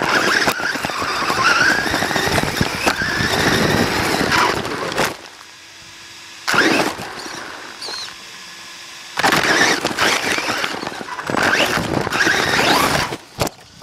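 HSP radio-controlled truck's motor and drivetrain whining in three bursts of throttle, the pitch rising and falling with speed, with knocks and rattles from the chassis. It is heard up close from a camera mounted on the truck.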